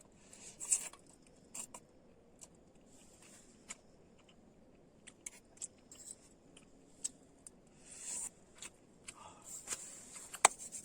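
Scattered small clicks, scrapes and rustles of close handling, a few seconds apart, with one sharp click near the end.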